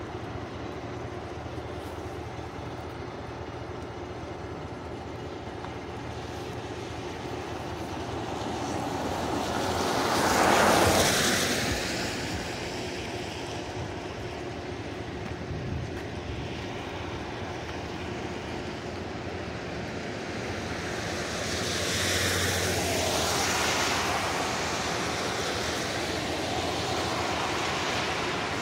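Cars passing on a wet road: tyre hiss swells up and fades away, loudest about ten seconds in, with a second, weaker pass about twenty-two seconds in, over a steady background hum of traffic.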